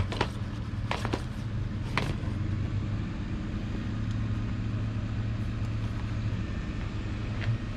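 A steady low hum like a vehicle engine running nearby, with sharp clacks: three in the first two seconds and one near the end.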